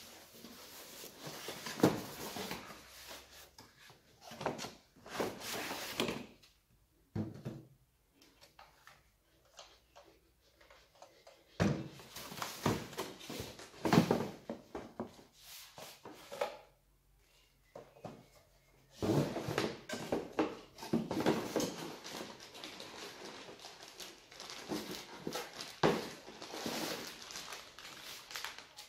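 Cardboard packaging being handled: irregular rustling and scraping of the box, with a few sharp knocks, as a cordless chainsaw is lifted out of its box and set down on a wooden workbench.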